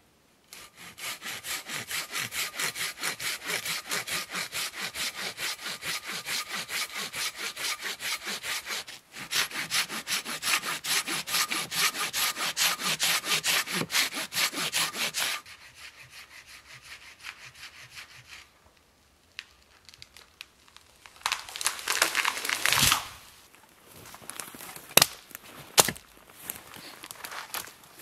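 A Silky hand saw rasps through the trunk of a dead standing tree in fast, even strokes, with a short pause, then lighter strokes. About two-thirds of the way in the trunk gives way: a swelling crack and rush end in a heavy thud as the tree comes down. Several sharp cracks and knocks follow near the end.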